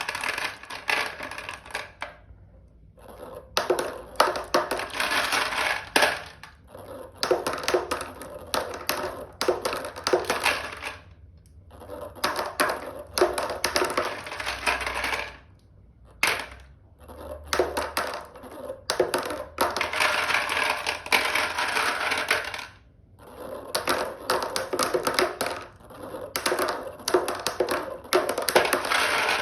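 Marbles rolling and clattering down a toy marble run track: dense rattling clicks in runs of a few seconds, broken by short pauses.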